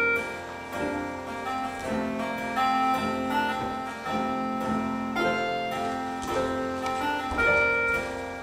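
Instrumental music with no singing: a melody of separate plucked or struck notes, starting roughly twice a second.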